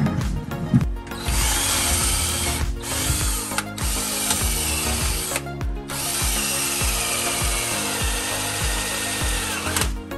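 Cordless power tool fitted with a chisel bit, run in bursts against the old rear differential bushing to chisel it out of the subframe around its edge. It stops briefly several times. Background music with a steady beat plays underneath.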